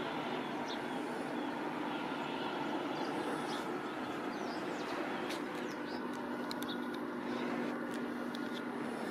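Steady outdoor background noise with a low hum, and a few short high chirps and clicks in the second half.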